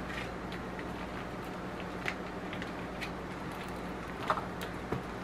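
Scattered light clicks and rustles from handling a package of saucy pre-cooked ribs, over a steady low electrical hum.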